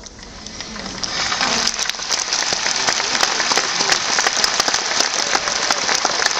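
A large audience applauding, the clapping swelling up over the first two seconds and then holding steady.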